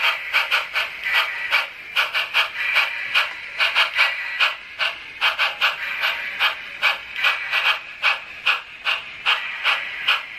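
Sn3 brass model steam locomotive running slowly on low throttle, giving a steady rhythmic clicking with a hiss, about four to five beats a second.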